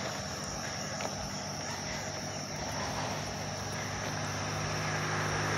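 Steady high-pitched insect trilling, with a motorcycle engine approaching and growing louder over the last couple of seconds.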